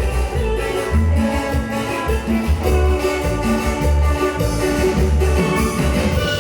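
Latin dance band playing an instrumental passage: sustained melody notes over a bass line that changes note about every half second, with no singing.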